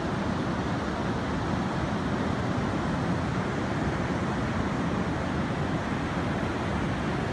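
Ocean surf washing onto a beach, heard as a steady rushing noise with no distinct breaks.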